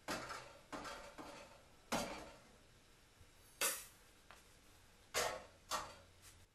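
A series of sharp clinks and knocks as a china bowl, metal scale pans and an aluminium pot are handled, and rice is tipped from the bowl into the pot, each sound brief and fading fast.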